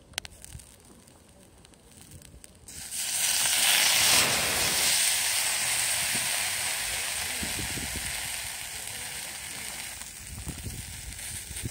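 Liquid seasoning poured onto a hot iron mini griddle with morel mushrooms on it. It bursts into a loud sizzle about three seconds in, which fades slowly over the next several seconds.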